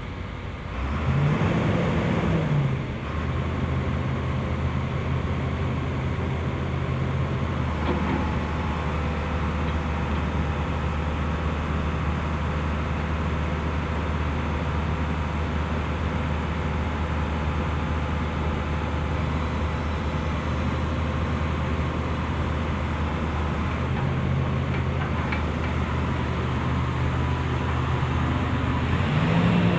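Hitachi EX355 demolition excavator's diesel engine running. The revs rise and drop back about a second in, hold steady for a long stretch, and rise again near the end.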